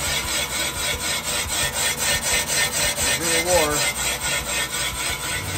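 Rottler cylinder boring bar cutting a Chrysler 318 cylinder bore oversize, a steady metal-cutting rasp with an even rhythm of about five ticks a second.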